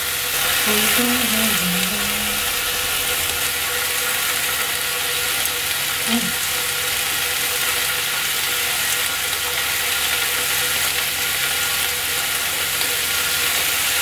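Hanwoo striploin steaks sizzling steadily on a hot electric grill pan.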